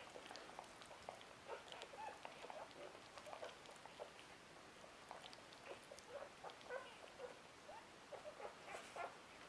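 Faint, scattered little squeaks and grunts of three-day-old Australian Labradoodle puppies as they nurse, with soft clicks among them.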